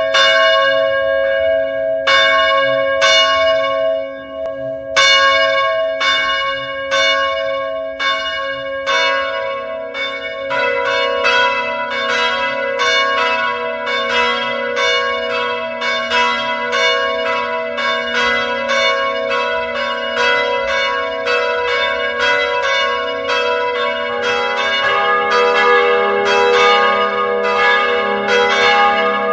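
Church bells ringing. Single strikes come about once a second at first; from about nine seconds in the strikes come faster and overlap in a continuous peal, and lower-pitched bells join near the end.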